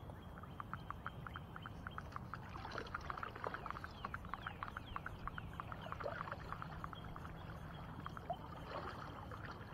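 Baitcasting fishing reel clicking in a fast, uneven run while a hooked fish strains the bent rod, over a low steady rumble of water and air.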